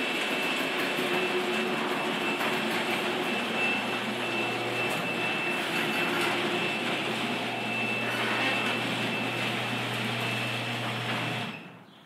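Garage door opener motor running as it raises the door, a steady mechanical drone that stops about half a second before the end. Over it sounds a high, thin, steady tone from the 1500-watt power inverter feeding the opener. This is the inverter's overload warning, meaning the opener's draw is peaking above 1500 watts.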